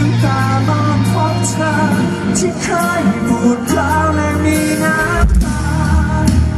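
A Thai pop-rock band playing live in concert: a male lead singer sings the melody into a handheld microphone over full band backing with bass and drums. The bass line shifts about five seconds in.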